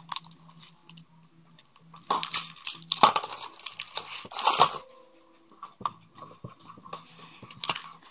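Kinder Surprise egg being opened: the foil wrapper crinkles and tears, and the chocolate shell crunches as it is broken, in several bursts. Small clicks follow in the second half as the yellow plastic capsule inside is handled and opened.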